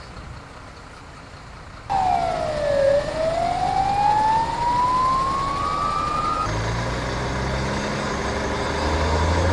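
An ambulance siren starts suddenly about two seconds in, dips in pitch and then slowly climbs for about four seconds. It cuts off, and a truck's engine runs with a low, steady hum.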